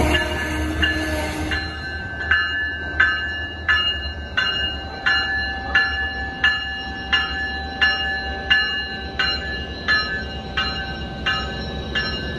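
Rail cars rolling past with loud wheel and track noise for about the first second and a half. Then a railroad crossing bell rings in a steady rhythm, about three strikes every two seconds, over the low rumble of the Siemens Charger SC-44 diesel locomotive close by.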